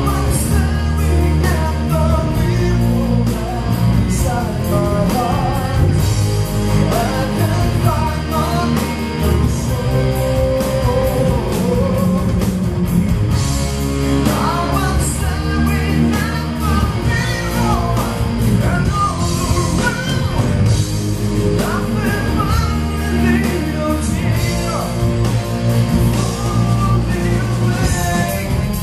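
Live rock band playing a song: a singer's vocal over electric guitars, bass guitar, keyboards and a drum kit, loud and continuous.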